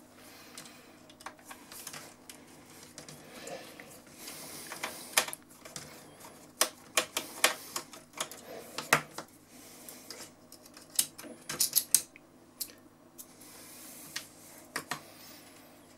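Irregular light clicks and ticks of a screwdriver working a small screw out of a cassette deck mechanism, in uneven clusters.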